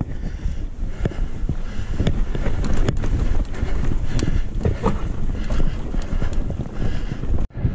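Mountain bike riding over sand and rock, with wind buffeting the camera microphone in a steady low rumble, and frequent knocks and rattles from the bike as it rolls over bumps. The sound drops out briefly near the end.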